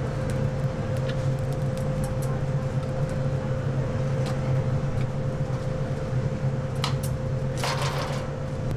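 Metal tongs setting lumps of charcoal onto burning coals in a grill, with scattered clinks and crackles and a short clatter near the end. A steady low machine hum runs underneath.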